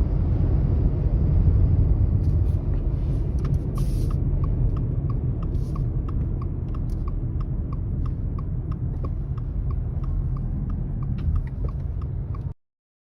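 Heavy low rumble of strong wind and road noise heard from inside a moving car. About three and a half seconds in, a steady ticking of the car's indicator joins it, about two to three ticks a second. The sound cuts out near the end.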